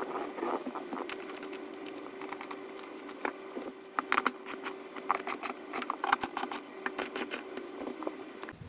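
Irregular light clicks and knocks of hard parts and hand tools being handled and fitted during reassembly, over a faint steady hum.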